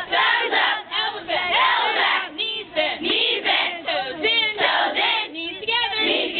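Several voices singing and shouting at once, overlapping and sliding up and down in pitch.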